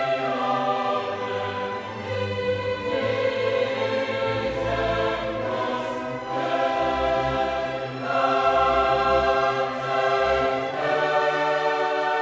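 Choral music with orchestra: a choir singing long held chords that change every few seconds.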